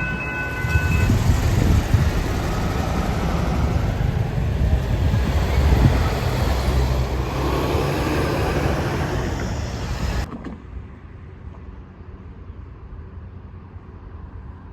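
Diesel freight train going past: its horn ends about a second in, then the loud rumble of engines and wheels, which cuts off abruptly about ten seconds in, leaving a much quieter background.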